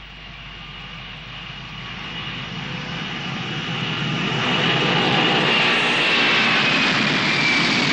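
Boeing 747 jet airliner's engines on the runway, growing steadily louder as it comes closer, with a high whine that falls slightly in pitch near the end.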